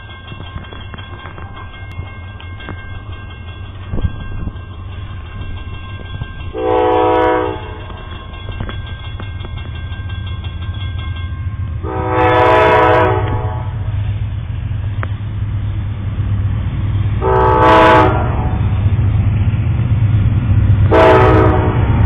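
Amtrak locomotive horn sounding four separate chord blasts as the train approaches a grade crossing, the second blast the longest. Under them the train's low rumble grows steadily louder, and a crossing bell rings through the first half.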